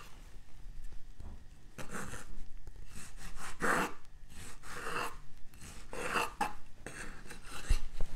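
A knife slicing ripe tomatoes on a wooden cutting board: about five short cutting strokes a second or so apart, with a sharp knock of the blade on the board near the end.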